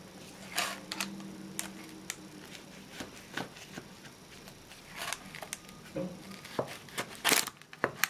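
Knife blade cutting through a baked puff-pastry pahlava in a parchment-lined pan: a series of short crisp scrapes and clicks as the blade goes through the crust to the bottom, the loudest near the end.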